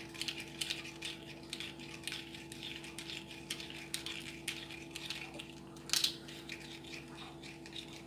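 A small spoon stirring detergent powder into water in a small plastic cup to make slime activator solution, clicking and scraping against the cup a few times a second in an uneven rhythm. There is one louder knock about six seconds in.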